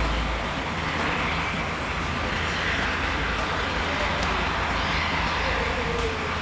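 Helicopter running: a steady turbine and rotor noise with a faint high whine coming in about halfway through.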